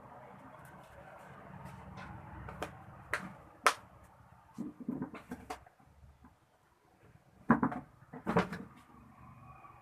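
Scattered sharp clicks and knocks of small tools and parts being handled on a workbench, with the loudest knocks about four seconds in and twice near the end.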